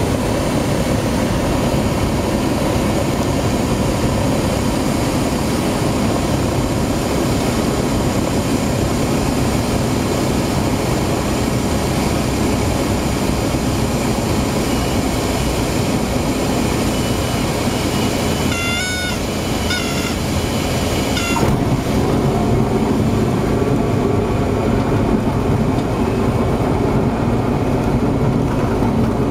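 Cessna's single piston engine and propeller running steadily, heard inside the cabin, through the final approach, touchdown and landing roll. About two-thirds of the way through there is a brief cluster of short high chirps. After that the sound changes slightly and grows a little louder.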